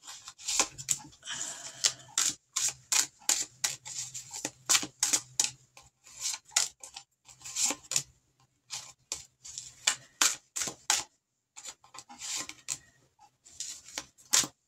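A deck of tarot cards being shuffled by hand: a quick, irregular run of crisp card clicks and slaps as the two halves are worked through each other, with a short pause about eleven seconds in.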